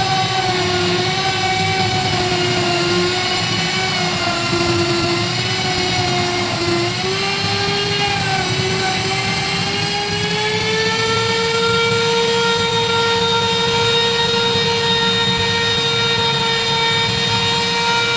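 An electric power tool's motor running with a steady whine. Its pitch wavers and dips in the first half, then rises about ten seconds in and holds steady.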